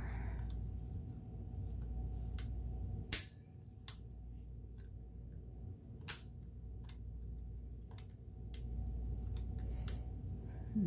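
A few sharp clicks and taps from hands working on a sewing machine's metal mechanism, the loudest a little past three seconds in and about six seconds in, over a low steady hum.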